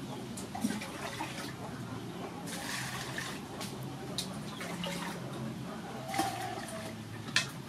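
Water scooped from a clay jar with a small metal bowl and poured into a large metal basin, splashing, with a few light clinks of metal.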